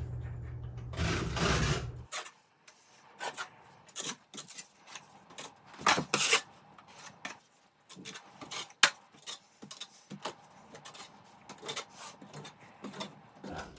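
A hand tool scraping and rubbing wet texture compound onto drywall in many short, irregular strokes. For the first two seconds a low steady hum with hiss runs underneath, then cuts off suddenly.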